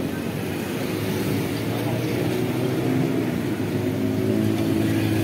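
A motor vehicle engine running steadily nearby with a low, even hum, slightly louder in the second half.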